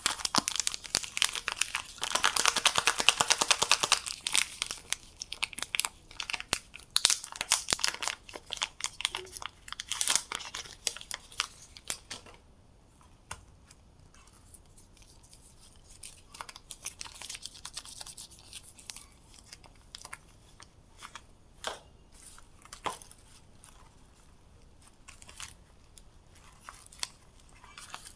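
Soap wrappers being torn open and crinkled by hand. Dense crackling and tearing for about the first twelve seconds, then quieter, scattered crinkles and clicks.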